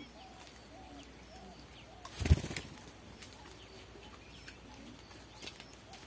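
A small brooding bird flapping its wings as it flies off its nest: one brief, loud flutter of wingbeats about two seconds in, over faint scattered chirps.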